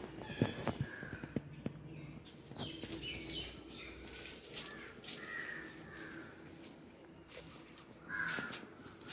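Bird calls: a series of short calls every second or two, the strongest near the end, with light clicks and taps between them.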